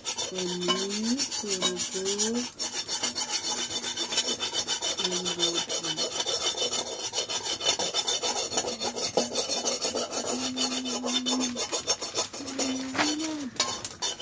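Rapid, rhythmic rubbing or scraping by hand, several strokes a second, kept up steadily.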